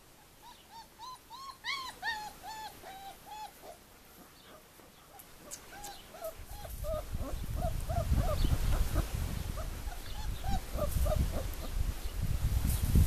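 Four-week-old puppies whimpering: runs of short, high whines, several a second, the first run higher-pitched than a second one that follows a brief pause. From about halfway a low rumble builds underneath.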